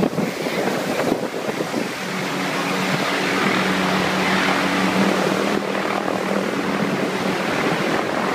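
Rescue helicopter hovering overhead for a cable hoist, its rotor and engine running steadily with a constant low hum over a dense rushing noise.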